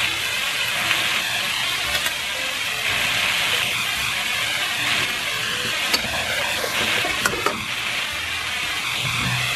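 Pork and vegetables sizzling steadily in a pot as shrimp paste is added and stirred in, with a few sharp clicks of a metal spoon against the pot late on.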